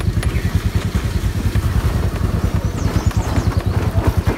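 A motorbike engine running close by, with a low, rapid, steady pulsing.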